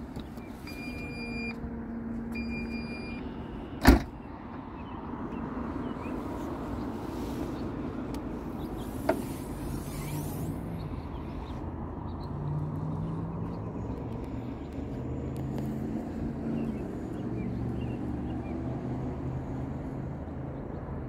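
Porsche Cayenne's tailgate closing: two short electronic beeps, then a loud slam about four seconds in as the tailgate shuts. A lighter click follows some five seconds later, over a steady low rumble.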